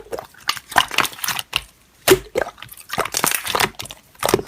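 Slime being pressed and squeezed by hand, making irregular crackling pops and squishes.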